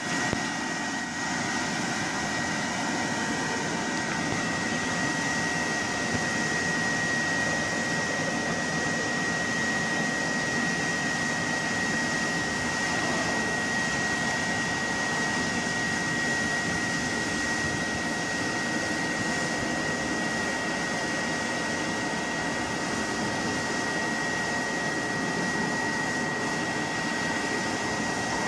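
Electric inflator blower running steadily, filling an inflatable bouncer with air: a steady rush of air with a steady high-pitched whine.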